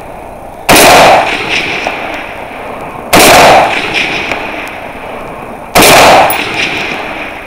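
Three rifle shots from a scoped rifle, spaced about two and a half seconds apart. Each shot is loud enough to hit the recording's ceiling and is followed by a fading echo.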